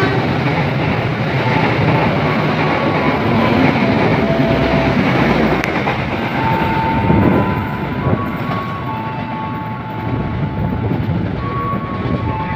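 Passenger train running past a station platform at speed: a continuous rumble and clatter of steel wheels on the rails, with a few faint steady tones over it.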